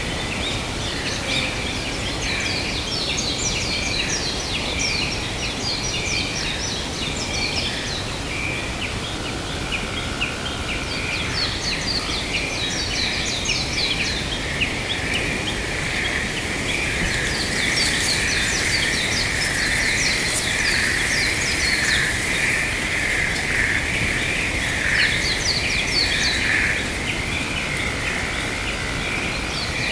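Forest ambience: birds chirping in short repeated trilling phrases, over a steady high drone and a constant hiss.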